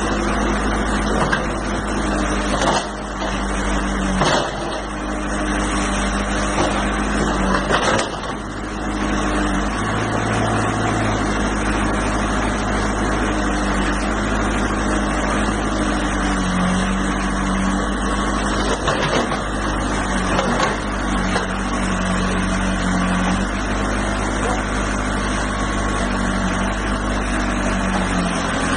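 Diesel engine of heavy earth-moving machinery running under varying load, its pitch stepping up and down several times. Several sharp knocks and clanks in the first third.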